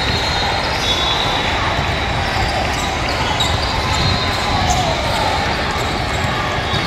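A basketball being dribbled on an indoor court, with the steady chatter of spectators and players around it in a large hall.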